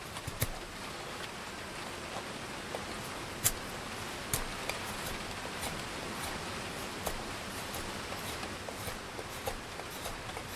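Steady hiss of heavy rain and wind, with scattered sharp clicks from a Schrade SCHF42D fixed-blade knife shaving a wooden spatula blank, the loudest about three and a half seconds in.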